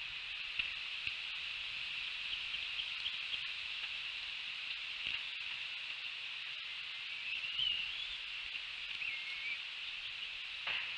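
Outdoor ambience from a treetop eagle-nest microphone: a steady high-pitched hiss, with a few faint wavering bird chirps and soft clicks from the nest, the strongest click near the end.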